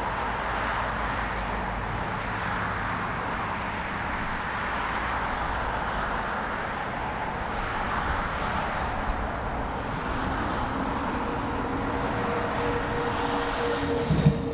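Jet airliner engines running in a steady roar, with a low rumble of gusty wind on the microphone. Two steady hum tones join in during the last few seconds.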